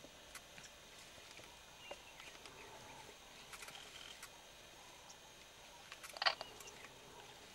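Faint outdoor bush ambience: scattered soft clicks and short high chirps, with one louder brief sound about six seconds in.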